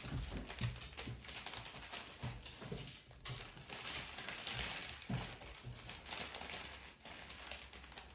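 Plastic packaging crinkling and crackling as it is handled, a steady run of small crackles.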